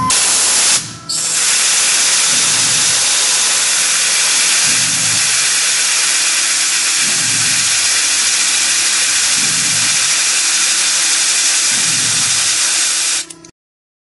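Tormach PCNC 1100 mill drilling 17-4 PH stainless with a 1/2-inch TiN-coated HSS twist drill at 300 RPM under a loud steady hiss, with a low rumble swelling about every two seconds. At this speed the spindle does not have enough torque once the drill reaches full cutting width. The sound dips briefly about a second in and cuts off suddenly near the end.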